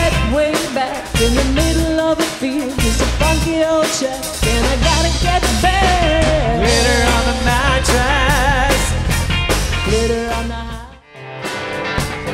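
Live rock band playing: electric bass, guitar and drums under a lead singer holding long wavering notes. The music cuts off about eleven seconds in, and after a brief gap music starts up again.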